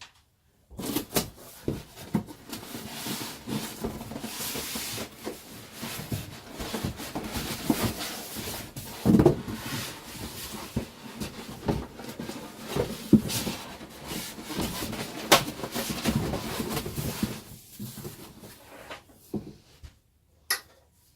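Parts being taken out of a cardboard box: rustling and scraping of cardboard and packaging, with irregular knocks. The loudest knocks come about nine seconds in and again around fifteen seconds.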